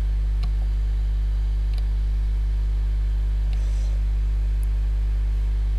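Steady low electrical hum with its overtones and a faint hiss, the mains-type buzz of a cheap recording microphone. A few faint clicks come through it, about half a second, two seconds and three and a half seconds in, as a plastic minifigure is handled close to the microphone.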